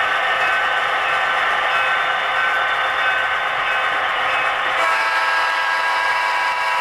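HO scale model coal train running on the layout, a steady sound of several held whining tones over a noisy bed, with the tones shifting about five seconds in.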